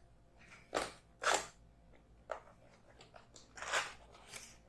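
Sealed cardboard keyboard box being opened by hand: a handful of short crinkly rustles and scrapes of cardboard and packaging, the loudest about a second in.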